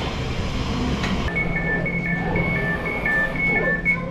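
Door warning tone of an Elizabeth line Class 345 train: two high beeps alternating quickly, about four notes a second, starting about a second in over a steady low hum from the train.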